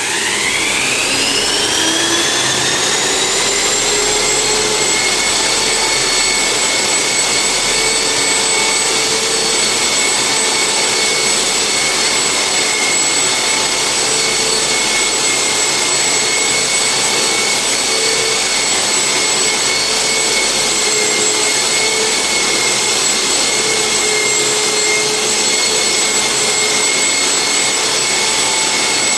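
Floor sander with built-in vacuum extraction starting up: its motor whine rises in pitch over the first few seconds, then it runs steadily with a high whine and an even rushing noise while sanding a damaged floor.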